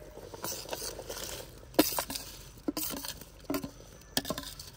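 Rice poured into a large metal cooking pot of boiling meat stock (yakhni): a soft rushing patter for about the first second and a half, then a string of sharp knocks and clinks against the pot, a few of them ringing briefly.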